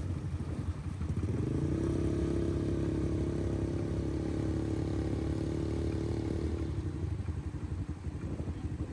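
A motor vehicle's engine running. Its pitch rises about a second in, holds steady for several seconds, then fades away.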